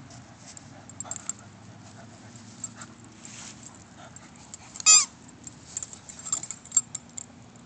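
A dog at play gives one short, high-pitched whine about five seconds in, the loudest sound here. Around it are faint rustling and a few small clicks.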